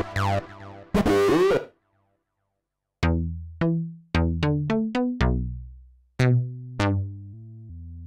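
Access Virus TI Snow synthesizer playing a bass patch from a keyboard. A short phrase ends about a second and a half in, then after a brief silence comes a run of about a dozen short, low notes, each starting bright and quickly dulling and fading.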